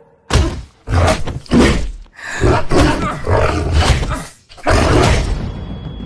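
A run of loud, rough, growling roars from a sound-designed supernatural creature, about five in quick succession, easing into a lower rumble near the end.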